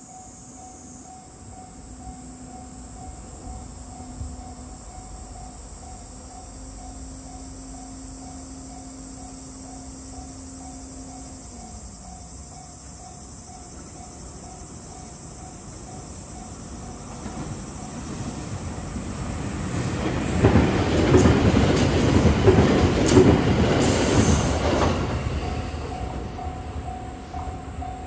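A level crossing warning bell rings in an even, repeating ding while a 521 series 1000-subseries electric train approaches. The train passes loudly with wheel and rail clatter, loudest about two-thirds of the way through, then fades as the bell is heard again.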